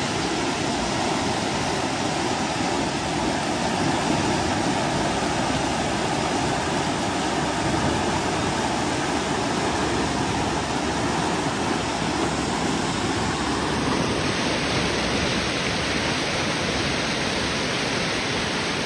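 Big Spring's outflow rushing as turbulent white water over rocks, a steady loud roar of water. About two-thirds of the way through the rush turns slightly brighter and hissier.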